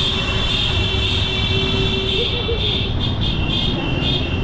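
Motorbikes running steadily: a dense engine and road noise with a steady high whine above it.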